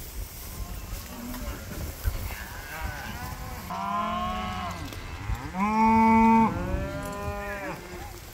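Black beef cattle lowing: a few drawn-out moos in a row, the loudest about six seconds in.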